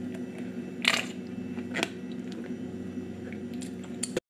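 A sriracha squeeze bottle squirting and sputtering as sauce is squeezed over food: two short hissing squirts about a second apart, with a few faint ticks, over a steady low hum.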